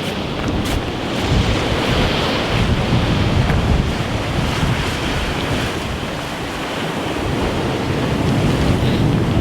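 Sea waves washing against shoreline rocks, with wind blowing across the microphone as a steady low noise.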